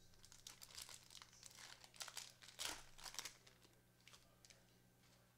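Faint crinkling and rustling of a trading-card pack wrapper being opened and handled by gloved hands: a quick run of crackles that thins out after about three and a half seconds.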